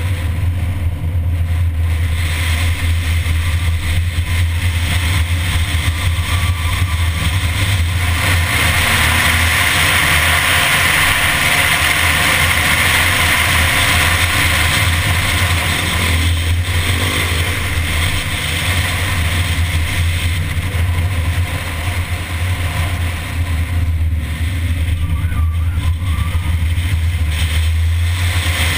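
Mini car driving along a winding road: a steady low engine drone with a hiss of wind and road noise over it, the hiss louder for a stretch in the first half.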